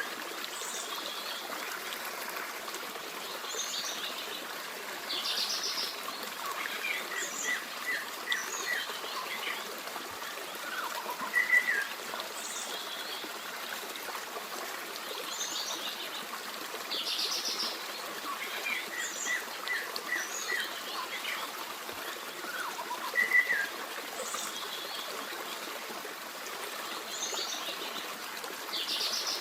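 Forest stream running steadily, with several birds singing over it: short high calls and quick runs of repeated chirps. The same sequence of calls comes round about every twelve seconds.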